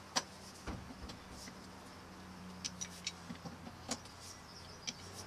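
Scattered light clicks and taps, about a dozen at irregular intervals, over a faint steady low hum: hand work with a tool on a chopper's metal rear frame.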